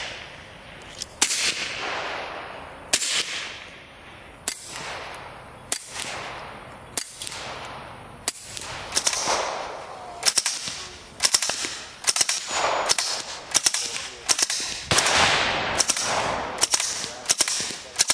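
Suppressed gunshots fired in a long series, each a sharp crack with a fading echo. They come every second or two at first and faster and less evenly after about eight seconds in.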